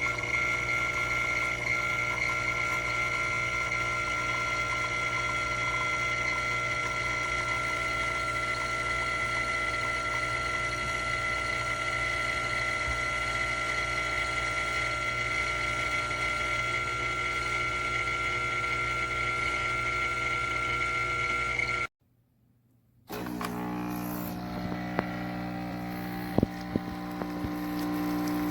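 Espresso machine running: its pump gives a steady hum with a high whine, which cuts out about 22 seconds in. A lower, steady hum follows, with a couple of sharp clicks.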